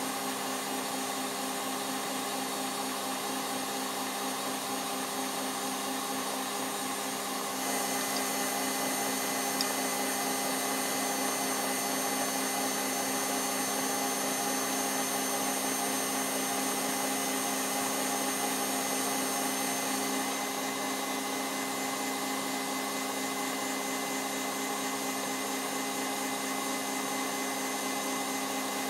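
KitchenAid stand mixer running steadily, its motor humming as the beater turns through cake batter in a glass bowl. The hum shifts slightly in tone about eight seconds in and shifts back about twenty seconds in.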